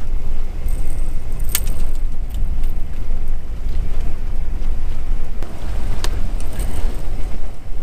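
Steady low rumble of a boat under way, mixed with wind on the microphone, with a few sharp clicks and knocks as a trolling rod and reel are handled and set in a rod holder, the clearest about a second and a half in and again about six seconds in.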